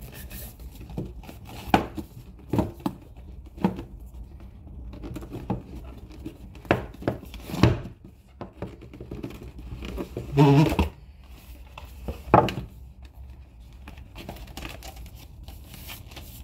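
A cardboard tablet box handled and opened by hand: scattered taps, knocks and rustling as the box is turned over and its lid slid off. There is one short pitched creak about ten seconds in.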